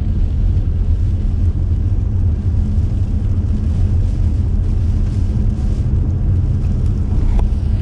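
Steady low rumble of a car driving through heavy rain, heard inside the cabin: tyres hissing on the flooded road and rain beating on the roof and windscreen.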